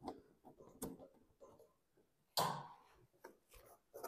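Light clicks, taps and rustles of a cardboard mock-up being handled and pressed into place against the edge of a truck's aluminium flatbed, with one louder rustling noise about two and a half seconds in.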